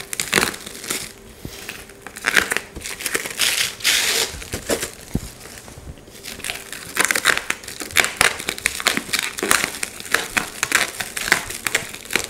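Clear plastic wrap crinkling and crackling as it is cut open with a knife and pulled off a bundle of aluminium extrusions, in irregular bursts, busiest in the second half.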